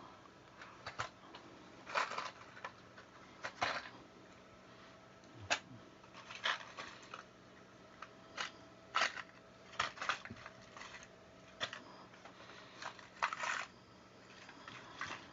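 A pile of crimp-on electrical wire connectors being picked through by hand: short, scattered rustles and clicks, about one every second or so.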